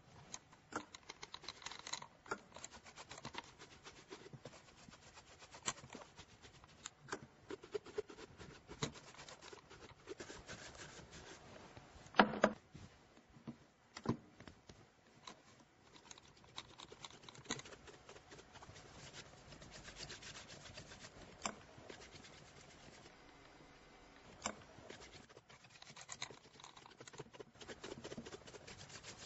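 Leather shoe being rubbed and polished by hand, a long run of quick scratchy rubbing strokes, with scattered light clicks and a few louder knocks of things set on the table, the loudest a little under halfway through.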